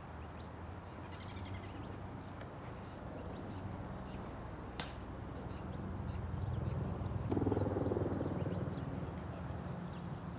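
Open-air outdoor ambience: a steady low hum with a swell of wind noise about seven seconds in, faint scattered bird chirps and one sharp click near the middle.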